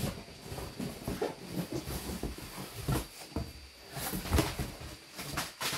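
Cardboard boxes being handled: a smaller box scraping and sliding out of a large cardboard shipping box, with rustling and several dull knocks.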